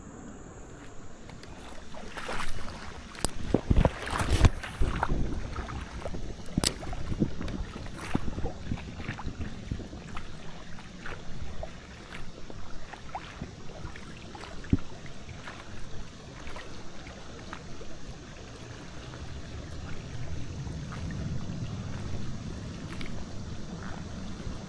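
River water running, with wind on the microphone and scattered clicks and knocks; a few louder ones come about two to five seconds in.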